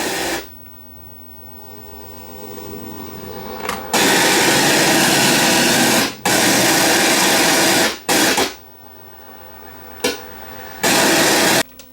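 Loud harsh static from a Sony EVS7000 Hi8 video deck's audio output, swelling for a few seconds and then coming in blocks of one to two seconds that cut in and out abruptly. The static is on the deck's sub channel and was traced to a bad capacitor in the audio circuit.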